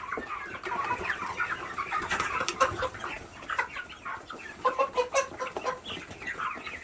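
A flock of chickens clucking, many short calls overlapping throughout, with a few sharp clicks in among them.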